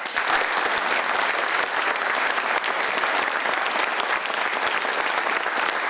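Audience applauding: dense, steady clapping that holds at an even level.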